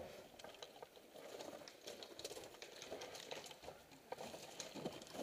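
Faint rustling with scattered light clicks and ticks: players shifting their gear and the gravel underfoot while crouched behind cover.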